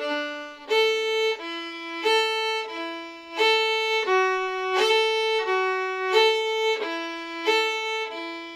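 Solo violin bowing a string-crossing pattern, alternating between notes on the A and D strings, with a new note about every 0.7 s and smooth changes between them.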